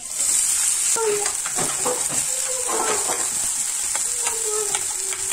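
Chopped green onions sizzling in hot vegetable oil in a metal frying pan, the sizzle starting as they hit the oil, with a spatula scraping and stirring them.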